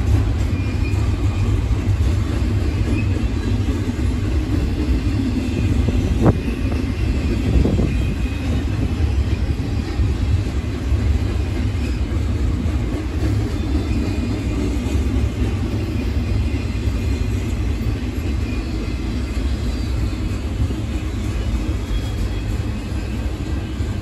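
Double-stack intermodal container train rolling past: a steady low rumble of the well cars on the rails, with two brief knocks about six and eight seconds in.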